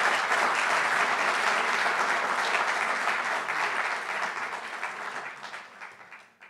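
Audience applauding, dying away over the last couple of seconds and stopping near the end.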